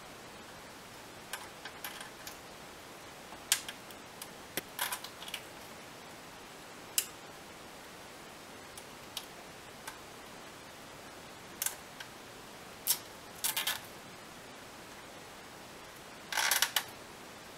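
Scattered sharp clicks and ticks of a plastic zip tie being handled and fed through a car radio's perforated metal casing, with a short run of rapid clicks near the end.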